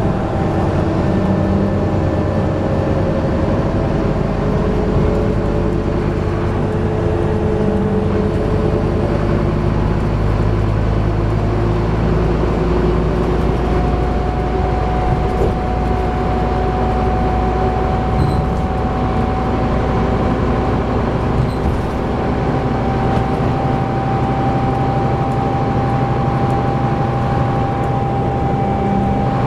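Inside a Scania Enviro 400 double-decker bus under way: the diesel engine runs hard under load, with road and body noise. About halfway through, a thin whine sets in and climbs slowly in pitch.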